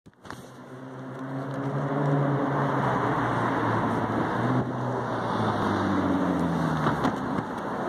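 A car engine running close by, its pitch drifting slowly down and back up, over a steady rushing street noise. The sound swells over the first two seconds and then holds.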